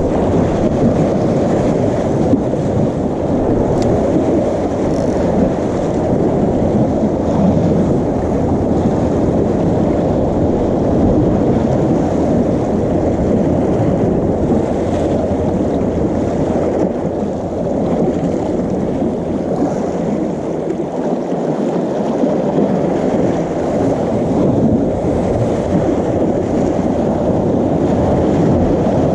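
Steady low rushing of wind and sea waves, with wind buffeting the microphone.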